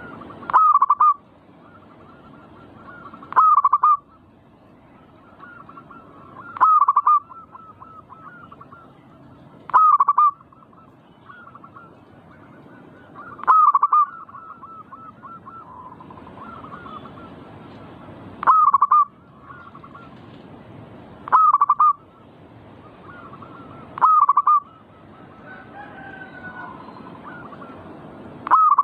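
Zebra dove (perkutut) cooing: a short, loud burst of rapid notes about every three seconds, nine times, with fainter, similar calls in between.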